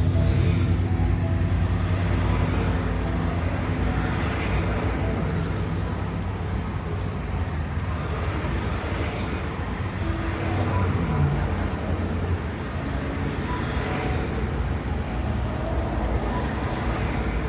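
Highway traffic: a steady wash of tyre and engine noise as vehicles pass one after another, swelling gently every few seconds. A low engine drone fades away over the first few seconds.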